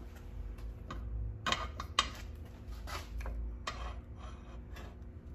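Steel vise and aluminum round bar being slid and repositioned on a steel saw table: metal scraping with several light clinks and knocks.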